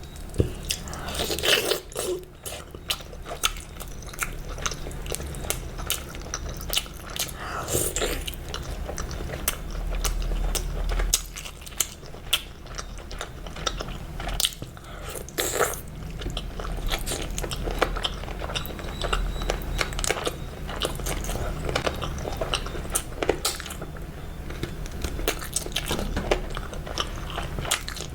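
Close-miked eating sounds of chicken egg fried rice: chewing and biting, with many short wet clicks and smacks of the mouth throughout.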